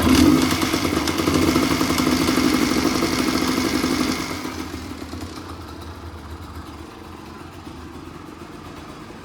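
Honda CRM250R two-stroke single-cylinder engine running with a clattering noise, which the owner takes for a worn piston, piston rings and cylinder needing a rebore. About four seconds in it grows much quieter.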